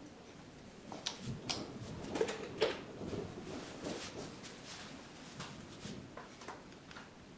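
Scattered light clicks and taps of small parts being handled and fitted by hand at a workbench, the sharpest about two and a half seconds in.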